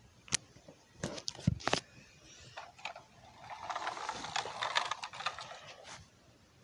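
Plastic toy mail truck being handled: a few sharp clicks and knocks, then a longer rattling scrape that stops near the end.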